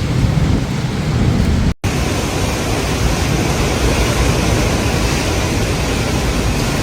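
Strong cyclone wind and heavy rain: a loud, even rushing noise. It drops out for an instant a little under two seconds in, then comes back with more hiss.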